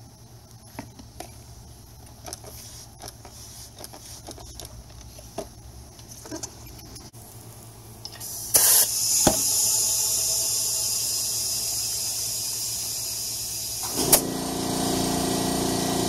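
Compressed air hissing steadily into a motorcycle tyre through its valve stem from about halfway in, inflating it to seat the beads. Near the end a click and an air compressor's motor starting up, running with a steady hum under the hiss. Before the air starts, only light handling taps and clicks.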